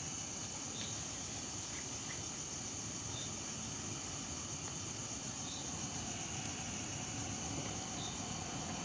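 Insects trilling steadily and high-pitched, with a faint low rustle beneath.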